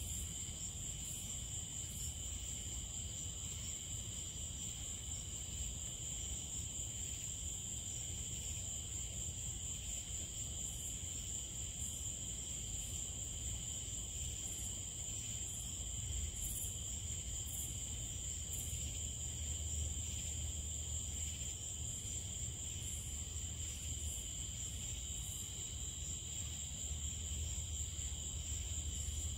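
A night insect chorus of crickets trilling steadily at two high pitches, with a low rumble underneath that swells slightly about two-thirds of the way through.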